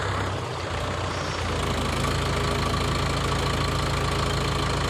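Heavy machinery's diesel engine running at a steady speed, with a faint steady whine joining about a second and a half in.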